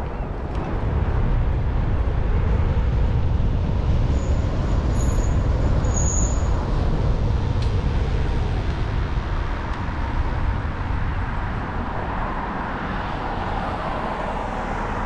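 Wind buffeting a GoPro Hero 8's microphone on a moving bicycle, a low rumble mixed with tyre and road noise, heavier for the first ten seconds and then easing. A few short high squeaks come about four to six seconds in.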